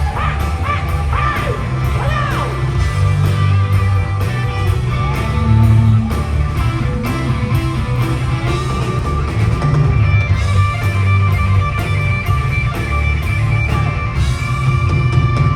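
Live rock band playing loudly: electric guitar with bent notes over a steady drum beat and heavy bass, with little or no singing.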